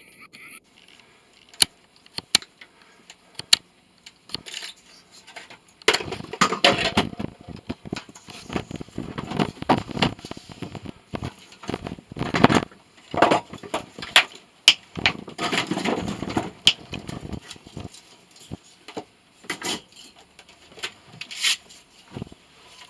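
Hand tools and scrap parts being worked on while a motor is taken apart: scattered sharp clicks and knocks, with several bursts of scraping and clattering.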